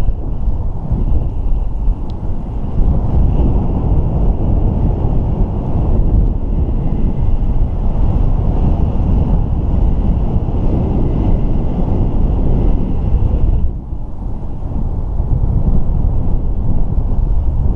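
Airflow buffeting the camera microphone of a paraglider in flight, a steady rushing wind noise that eases for a moment about fourteen seconds in.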